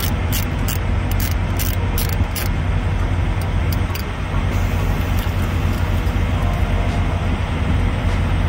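Ratchet clicking as the hose clamp on a semi-truck's turbocharger inlet is worked loose, a quick run of sharp clicks about three a second in the first couple of seconds. Under it is a steady low vehicle rumble.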